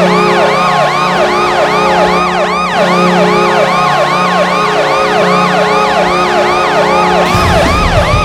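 Arena goal horn, a Kahlenberg Q-3 air horn, blowing a steady chord while a siren wails up and down over it about two and a half times a second. About seven seconds in, the horn and siren stop and rock music begins.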